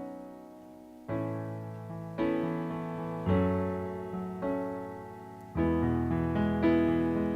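Keyboard playing slow, gentle chords, a new chord struck about once a second and each fading away before the next.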